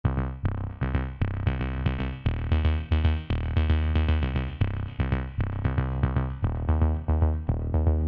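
Electronic background music with a steady beat, a synthesizer playing short repeated notes over a strong bass.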